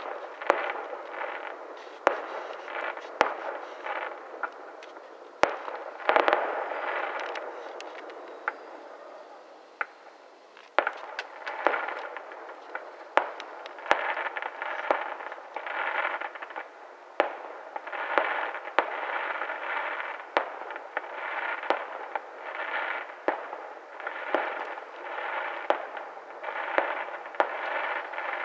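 Aerial fireworks going off: sharp bangs every second or two, each trailing into an echo. The firing thins out about eight seconds in, then comes thick again from about eleven seconds.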